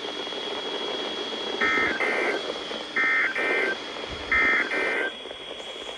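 EAS end-of-message data burst (SAME header) sent three times: three short, buzzy digital tone bursts about a second and a half apart, marking the end of the alert. They play over radio hiss with a thin, steady high whine.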